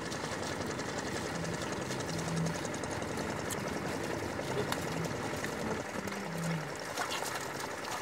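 A pair of bullocks pulling a wooden plough through flooded paddy mud: a steady wash of outdoor noise with light splashing and sloshing from hooves and plough in the wet mud, and a few brief low hums.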